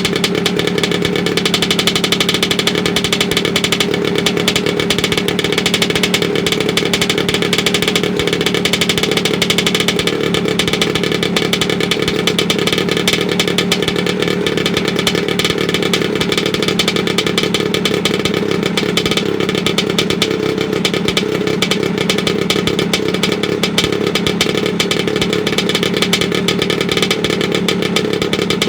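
Vespa PX 125 scooter's single-cylinder two-stroke engine, fitted with a revolver exhaust, running steadily at an even speed.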